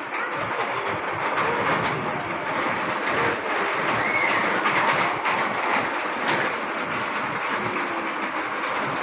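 Steady heavy rain falling, an even rushing patter.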